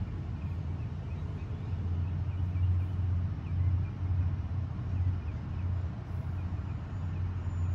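A steady low background rumble that swells and eases about once a second, with faint high ticks repeating above it.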